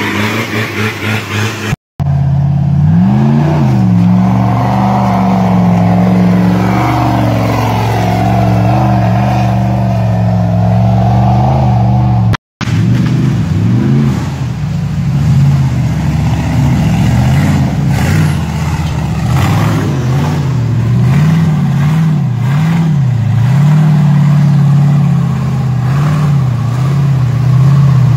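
Off-road 4x4 vehicle's engine revving up and down again and again. It breaks off for an instant twice.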